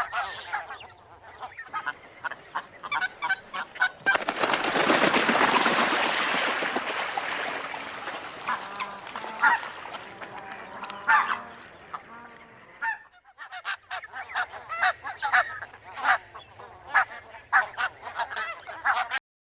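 A flock of barnacle geese calling, a dense chorus of short, high honks. From about four to eight seconds a loud rush of noise rises over the calls and fades away. The sound cuts off suddenly at the very end.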